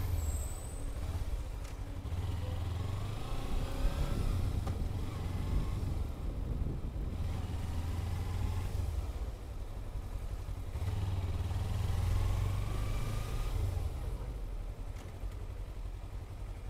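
Motorcycle engine running at low speed in stop-and-go traffic, its revs rising and easing a few times as it pulls forward and slows again.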